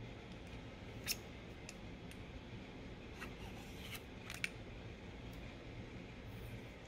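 A few short, sharp metallic clicks as the pommel end of a metal lightsaber hilt is unscrewed and the chassis is slid out of it. The two loudest clicks come about a second in and about four and a half seconds in.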